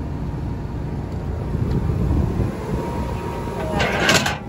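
Steady low rumble of wind noise on the microphone, with a short, louder burst near the end.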